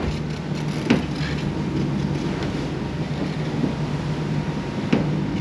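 Leopard 45 catamaran under way in a rough sea, heard from inside the cabin: a steady low drone with rushing wind and water, and two sharp knocks, about a second in and near the end.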